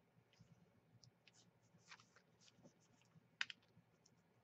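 Near silence with faint scattered clicks and light taps, and one sharper click about three and a half seconds in.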